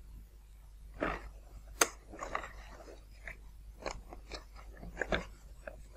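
Hands handling a foam model airplane's plastic landing-gear leg while hooking a rubber band over a bamboo pin. A rustle about a second in and one sharp click just before two seconds are followed by a scatter of small clicks and scrapes.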